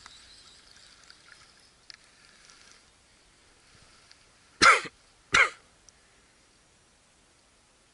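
A man coughs twice in quick succession, two short loud coughs about two-thirds of a second apart near the middle.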